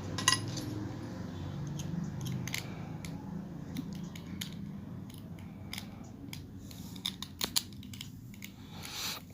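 Small scattered clicks and taps of a tiny Allen key or screwdriver working a screw on a Braun Silk-épil epilator's casing, over a steady low hum. The clicks come closer together about seven seconds in.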